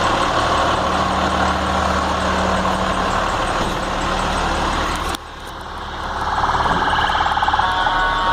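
Fire engine's engine running, a steady rumble with a low hum. About five seconds in the sound cuts off abruptly, then a siren fades in and grows louder.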